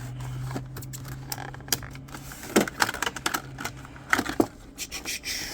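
Plastic blister pack and cardboard backing card of a diecast toy car being cracked open and pulled apart: a run of sharp crackles and clicks, loudest from about halfway through.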